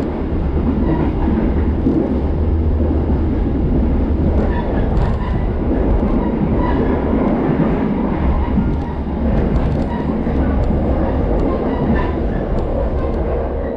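Moving train's running noise: a steady low rumble of wheels on rail, with light scattered clicks.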